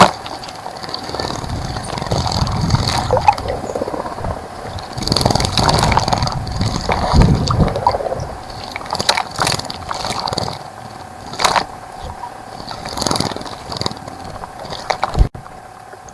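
Birds bathing in a bird bath: irregular bursts of splashing in shallow water, heaviest in the middle, with a few sharp clicks.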